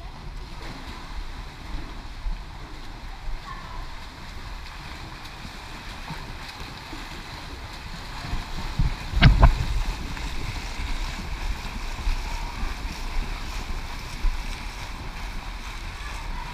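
Water splashing and churning from swimmers' backstroke arm strokes and kicks in a pool, a steady wash of water noise. A single thump about nine seconds in.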